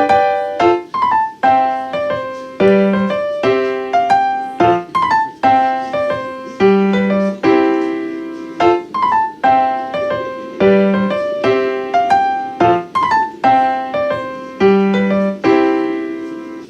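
Background piano music: a gentle repeating phrase of struck notes over a steady bass pattern.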